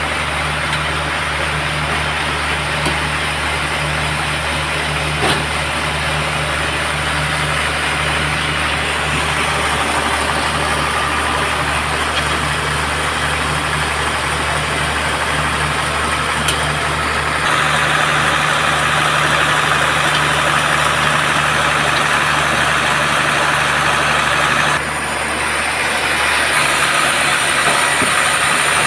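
Band sawmill running steadily, a constant low machine hum under a hissing saw noise. The saw noise grows louder and brighter about two-thirds of the way in, drops back briefly, then rises again near the end.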